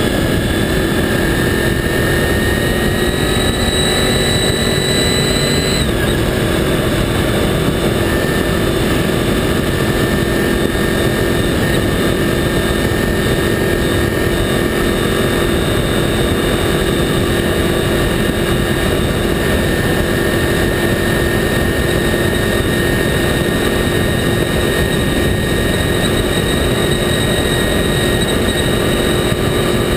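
Honda VFR800 motorcycle's V4 engine running at speed over heavy wind and tyre roar. Its pitch climbs for about six seconds, then drops suddenly as it shifts up a gear, and it holds steady after that.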